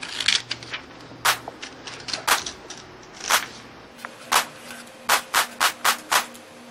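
Felt-tip pen scratching across sketchbook paper in short separate strokes as letters are drawn, with a quick run of about four strokes a second a little after halfway. Paper rustles in the first second as a sheet is handled.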